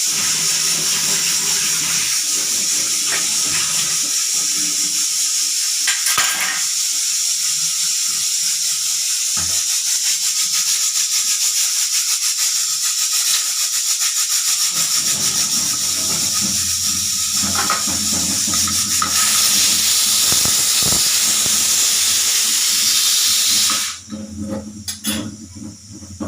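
Pressure cooker whistling: a long, loud, high jet of steam hissing out past the weight valve, growing louder for its last few seconds and then cutting off suddenly near the end as the valve reseats.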